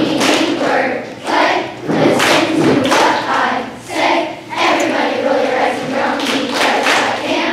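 Children's choir singing in phrases of about a second each.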